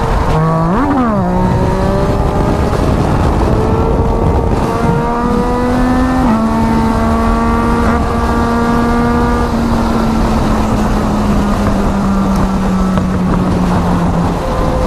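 Yamaha MT-09's three-cylinder engine under way at highway speed. It revs quickly up and back down about a second in, then holds a steady pitch that steps up slightly around six seconds and sinks gently toward the end. Heavy wind noise on the microphone runs under it.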